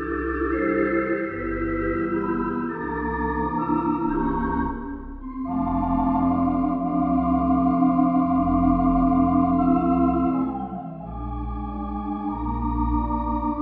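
Wurlitzer theatre pipe organ sound from a Hauptwerk virtual pipe organ using the Modern Fox Wurlitzer sample set, playing a melody over sustained chords and a pedal bass line. It swells fuller and louder from about five seconds in, then eases back near the end.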